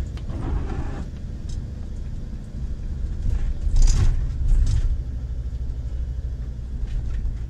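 Inside the cab of a motorhome driving slowly: a steady low engine and road rumble, with a brief louder surge of noise about four seconds in.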